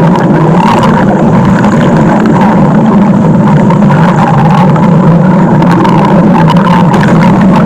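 Loud, steady stomach-growl sound effect: a low rumble with a rough, rattling texture.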